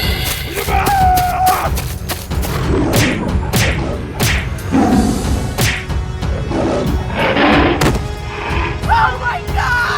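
Background music under a string of cartoon fight sound effects: repeated thuds and crashes, with a few short squealing calls about a second in and near the end.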